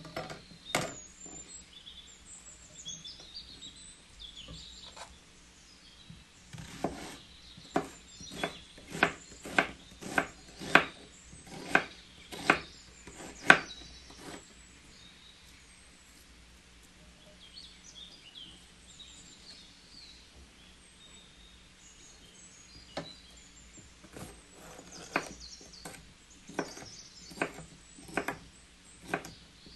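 Kitchen knife slicing an onion and then a green pepper on a wooden cutting board: a run of sharp knocks on the board, under two a second, then a long pause, then more chops near the end. Birds chirp faintly in the pauses.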